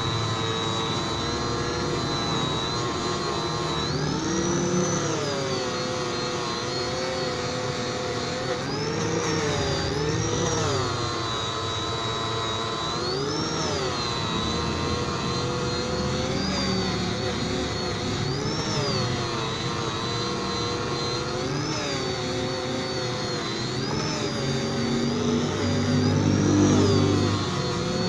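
Electric angle grinder with an abrasive disc grinding down a weld on a stainless-steel pipe elbow. The motor whine falls and rises again every few seconds as the disc is pressed onto the pipe and eased off, with a rough grinding noise under it.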